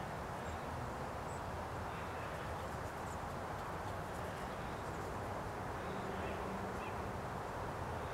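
Steady outdoor background noise: a low, even hiss with no distinct events, and a few faint, brief high chirps.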